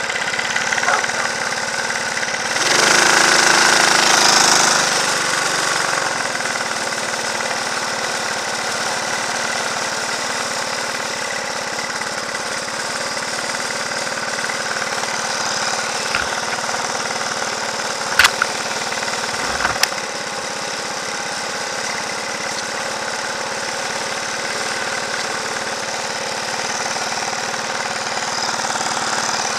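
Go-kart engine running steadily at low speed, close to the kart's onboard microphone, with a louder swell of engine noise for about two seconds starting three seconds in. A few sharp clicks come near the end.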